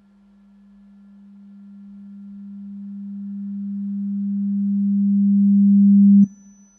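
Electronic low sine tone, steady in pitch, swelling slowly and evenly from very faint to loud, then cut off abruptly with a click about six seconds in. A faint, thin high tone starts at the moment of the cut.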